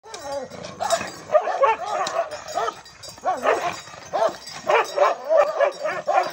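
Two chained dogs barking and yelping at each other in a rapid string of short, high calls with brief pauses.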